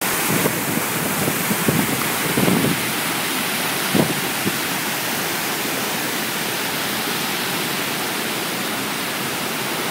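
Floodwater rushing over a small dam's spillway gates into churning white water, a steady, loud rush of water with the river in flood. A few dull low thumps in the first three seconds and a sharper one at about four seconds.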